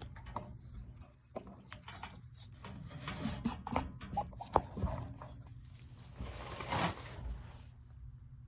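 Handling noise as a camera and its mount are moved and set up: irregular knocks, taps and clicks, with a brushing rustle about seven seconds in.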